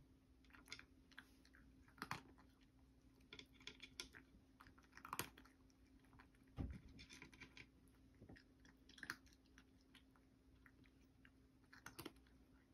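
Cat crunching dry kibble: faint, irregular crunches and clicks as it chews. There is a dull thump about halfway through.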